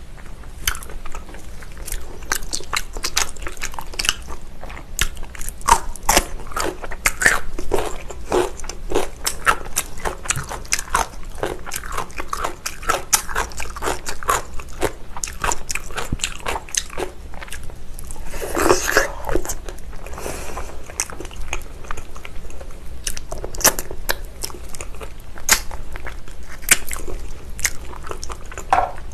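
Close-miked mukbang eating sounds: biting and chewing of spicy braised beef feet, a dense run of irregular wet clicks and crunches. One longer, louder stretch of chewing comes about two-thirds of the way through.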